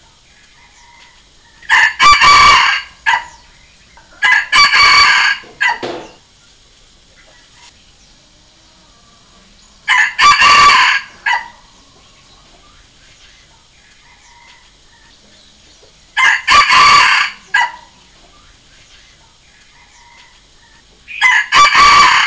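Red junglefowl rooster crowing, five crows a few seconds apart, each short and ending abruptly; the last one is cut off at the end.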